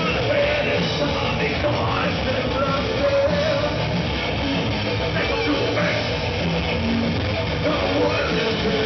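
Live heavy rock band playing loud and without a break, with distorted electric guitars and drums, heard from within the crowd.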